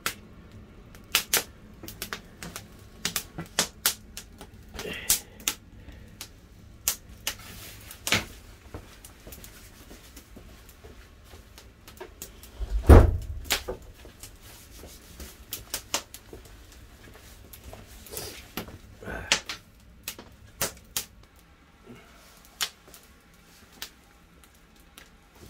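Wood fire crackling, with sharp irregular pops and snaps from the burning firewood and one heavy thump about halfway through.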